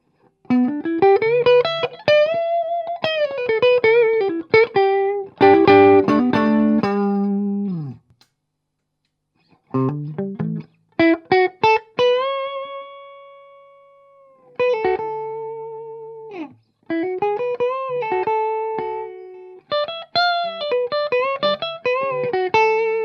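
Bad Cat Love Pup electric guitar played clean through an Orange Tiny Terror amp: picked single-note phrases with string bends and vibrato, a strummed chord about six seconds in, a brief pause, then long sustained notes wavering with vibrato.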